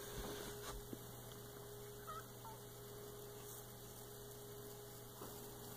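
Faint, steady electrical mains hum in a quiet room.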